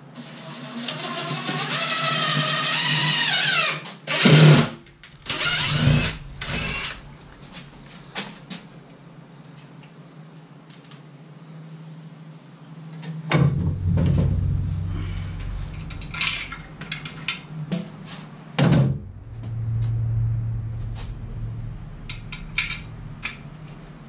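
Cordless drill running for about four seconds, its whine rising in pitch as the bit bores into the house siding, followed by a few sharp knocks. Later come scattered clicks and knocks of handling.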